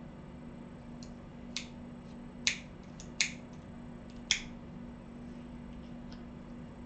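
Four sharp, short clicks spaced irregularly across about three seconds, over a steady low electrical hum.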